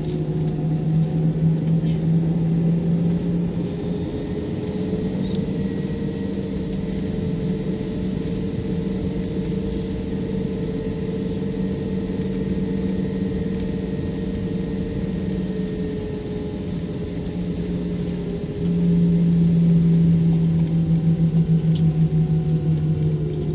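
Jet airliner's turbofan engine heard from inside the cabin over the wing as the plane taxis on the runway before take-off: a steady low drone and hum. Its pitch climbs slightly in the first few seconds and eases back around the middle; about three-quarters of the way through it grows louder with a fast pulsing.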